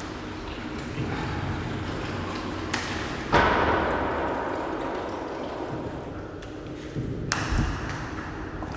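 Water running from a metal tap into a marble hamam basin, with a sharp metallic ping a few seconds in as the tap is handled, and a low thump near the end. Echoing off marble walls.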